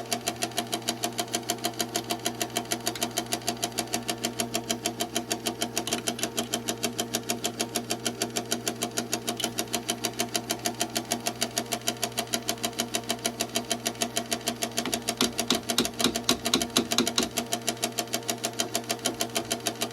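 Insignia NS-IMN44BS4 nugget ice maker running with a rapid, regular knocking over a steady motor hum, several knocks a second, briefly louder about fifteen seconds in. The knocking is the fault being chased, which the owner places in the top of the machine around the auger drive.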